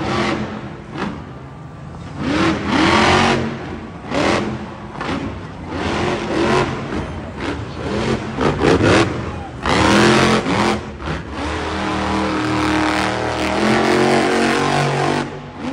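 Monster truck's supercharged V8 engine revving hard in repeated bursts, each one rising and falling in pitch as the truck wheelies. It is held at high revs for a few seconds near the end, then drops off.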